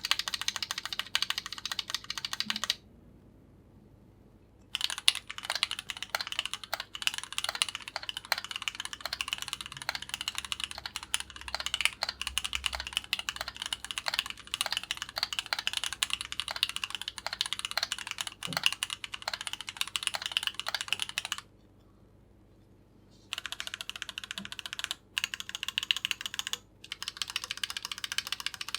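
Keychron Q8 mechanical keyboard being typed on quickly in dense runs of keystrokes, stopping twice for about two seconds.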